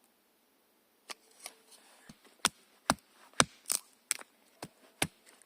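A run of sharp knocks, about two a second, starting about a second in, some louder than others.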